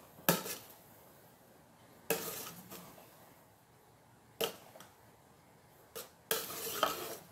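Metal spoon stirring thick cooked rice in a metal pot, clinking and scraping against the pot: about five separate knocks and scrapes, the longest near the end.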